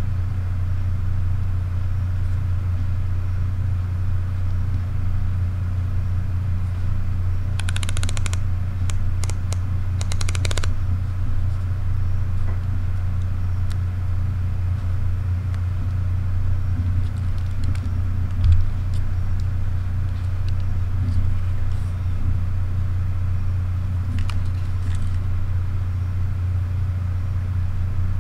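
Steady low hum, with two short runs of rapid clicking about eight and ten seconds in from the aperture ring of a Sony RX1R II's Zeiss Sonnar 35mm f/2 lens being turned, and a few faint ticks later on.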